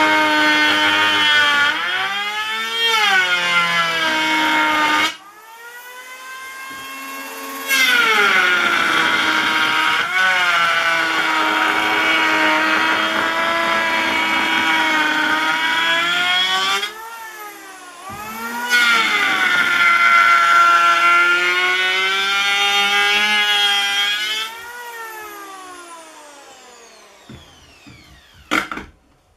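Harbor Freight handheld electric planer running and cutting along a warped board, its motor whine sagging in pitch as the blades bite. It is shut off and restarted twice, and near the end it winds down with a long falling whine.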